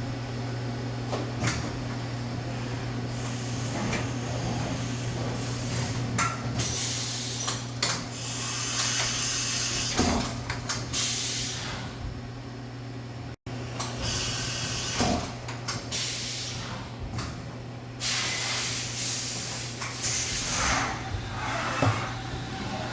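Fadal VMC 4525 vertical CNC machining center with a steady low hum, broken by repeated bursts of hissing and several sharp clunks.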